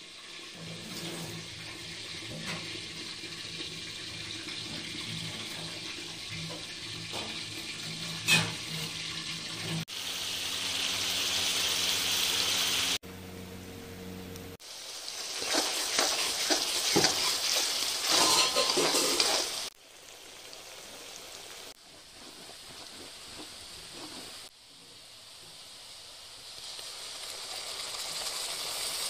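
Oil sizzling and bubbling in a pan as garlic and curry leaves fry, heard in a string of short clips that cut in and out abruptly, with the odd click of a utensil.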